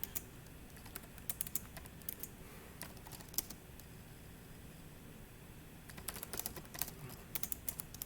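Computer keyboard typing: keys clicking in quick, uneven runs. They thin to a few strokes in the middle, then come fast and dense from about six seconds in.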